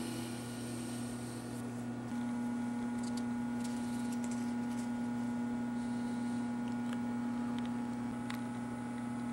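A steady low electrical hum, a little louder about two seconds in, with a few faint papery clicks and rustles as a folded paper note is handled and unfolded.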